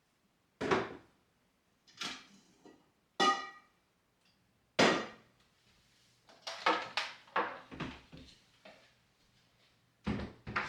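A series of separate knocks and clunks from objects being handled and set down, one about three seconds in ringing briefly like struck metal or glass, then a quicker cluster of clatters in the second half.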